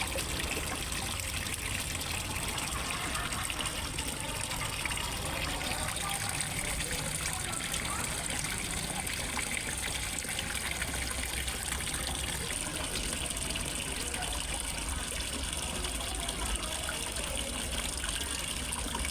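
Water falling into a fish pond, splashing and trickling steadily without a break, as from a small waterfall.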